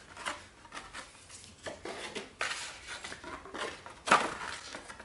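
Paper cards and leaflets being handled against cardboard packaging: irregular rustles and light scrapes, the loudest about four seconds in.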